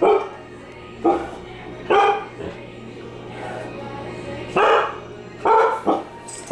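A dog barking at a running front-load washing machine: about six loud, short barks, three of them in quick succession near the end. A steady low hum from the washer runs underneath.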